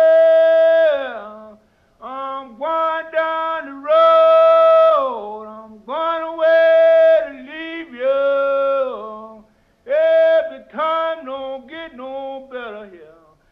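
A man's voice singing alone without accompaniment: slow phrases with long held notes, each broken off by a short pause for breath.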